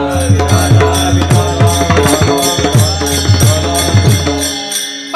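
Kirtan accompaniment: a hand drum struck about four times a second under a steady held harmonium-like tone and ringing hand cymbals keeping the beat. The drum stops about four and a half seconds in.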